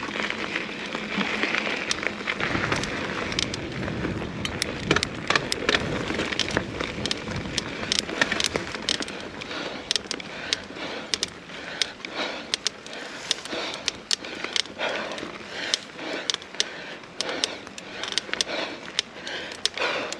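Mountain bike rolling along a dirt trail: a steady rush of tyre and ground noise with frequent sharp clicks and rattles as it goes over rough ground.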